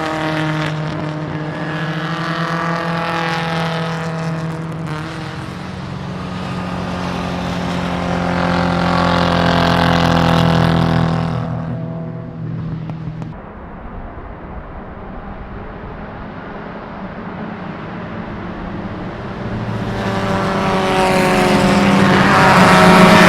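Racing car engines at speed. One car's engine note swells to a peak and falls away, there is a quieter spell with engines still running, then another car approaches and grows loudest near the end.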